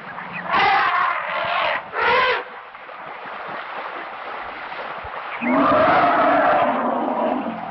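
African elephants calling: two harsh calls in the first two and a half seconds, then a longer, lower call of about two seconds near the end, with a steady hiss in between.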